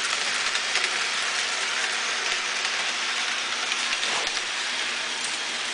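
Model train running on its track loop: a steady rushing rattle of small wheels on the rails and the locomotive's motor, with a few faint clicks about four seconds in.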